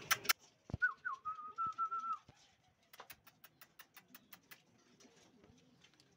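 Pigeons cooing softly, with a whistle held on one wavering pitch for about a second near the start. About three seconds in comes a quick, even run of faint clicks, some six a second.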